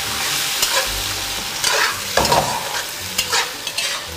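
Pork belly cubes sizzling in a wok as a spatula stirs them through caramelized sugar, with several short scrapes of the spatula against the pan. This is the frying step that coats the pork in caramel colour for red-braised pork.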